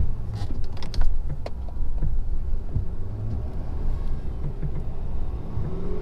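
2017 Ford F-250's 6.7-litre Power Stroke V8 turbo-diesel running under a steady low rumble while plowing snow, with a few sharp clicks and knocks between about half a second and a second and a half in.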